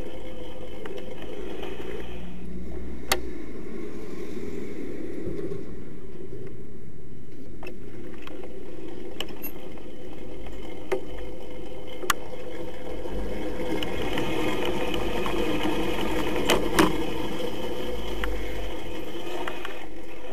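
Small two-stroke 50cc scooter engine with an Airsal T6 cylinder kit and Giannelli expansion exhaust, running steadily under way, with a few short clicks.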